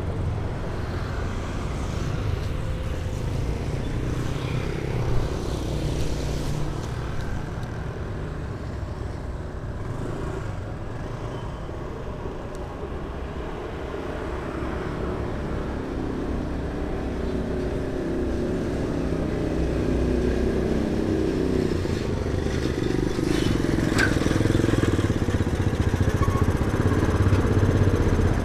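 Street traffic: motor vehicle engines running and passing, with the engine sound growing louder over the last several seconds. A short sharp tick about five seconds in.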